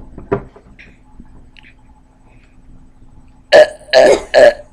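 A boy forcing out burps: two small throaty croaks at the start, then three short, loud burps in quick succession about three and a half seconds in.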